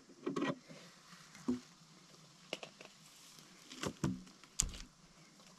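Handling noise of a rope being tied around a log: a few scattered short knocks and rustles, the sharpest click near the end.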